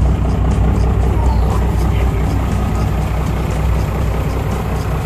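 Cummins turbo-diesel with twin turbochargers running through tall open exhaust stacks in the truck bed: a steady, loud, deep drone.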